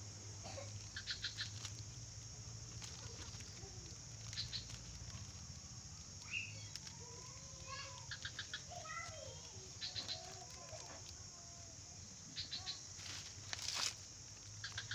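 Outdoor ambience: a steady high insect drone, with short clusters of quick chirps every few seconds and faint wavering calls, over light rustling as a plastic bag is tied onto a cut galangal stem.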